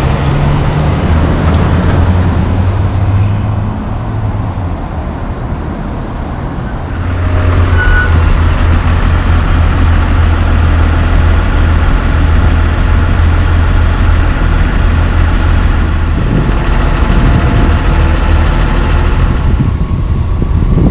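Diesel engine of an empty logging truck pulling away, fading over the first few seconds. About seven seconds in, a Genie S-85 boom lift's engine takes over with a steady low drone as the lift drives past.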